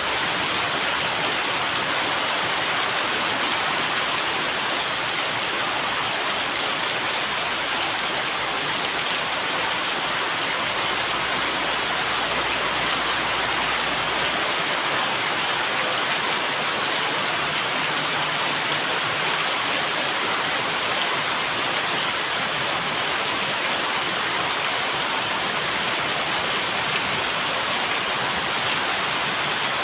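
Steady, even rainfall with no letup.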